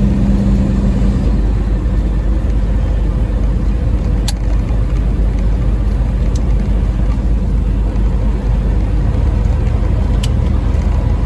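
Steady engine and road noise inside a semi truck's cab while it drives at highway speed, with a few light clicks.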